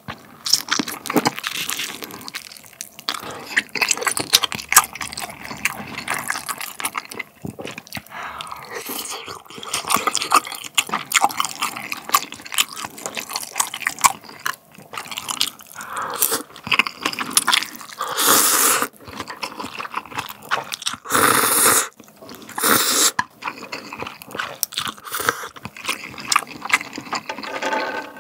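Close-miked eating sounds: a person chewing and biting into potato dumplings and ramen noodles with soft tofu, with wet mouth clicks. Several longer slurps of ramen noodles come in the second half.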